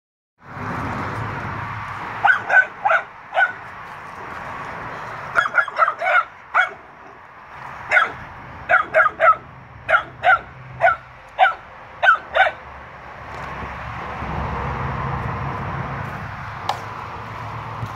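Bulldog barking in short, sharp barks: a few at first, a quick flurry a little later, then a steady run of about a dozen barks roughly twice a second before it stops.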